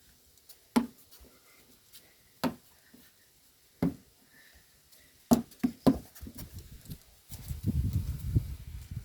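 A basketball bouncing on a hard floor: single bounces about a second and a half apart, then three quick bounces in a row around five seconds in. Near the end a rough low rumbling noise comes in.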